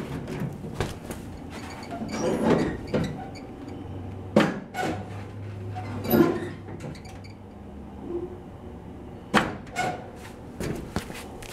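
Irregular metal clicks, clinks and knocks of hand work on the parking-brake clevis and cable rod under a 1949 Chevy 3100 truck, the rod being turned in to shorten the cable so the slipping parking brake will hold. Several sharper knocks stand out partway through.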